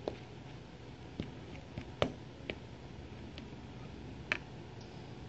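Metal spoon stirring a dry flour mix in a bowl, with irregular light clicks of the spoon against the bowl, about seven in all, the loudest about two seconds in.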